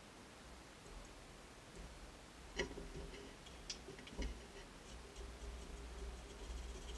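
Faint scattered clicks and light knocks of hand tools being handled against a guitar fretboard and its plastic binding, the sharpest click about two and a half seconds in.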